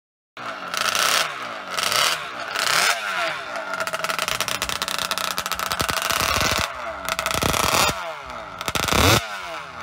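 Motorcycle engine revving, its pitch rising and falling again and again with throttle blips, the loudest rev near the end.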